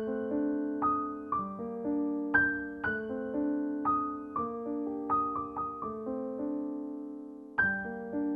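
Background piano music: single notes and chords struck at an easy pace, each left to ring and die away, with one chord held and fading out just before a new one is struck near the end.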